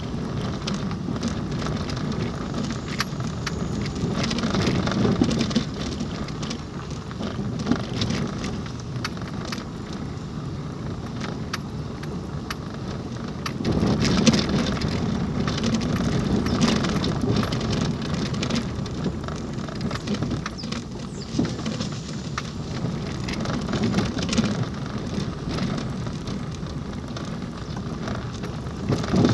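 Road noise inside a car's cabin while driving on a rough, wet dirt road: tyres on packed earth and gravel, with frequent small knocks and rattles and louder stretches a few times where the surface gets rougher.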